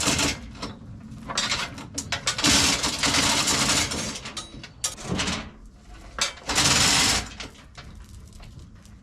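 Chain hoist being worked to lift a sawmill's saw head, its chain clattering in several bursts of a second or so with short pauses between pulls.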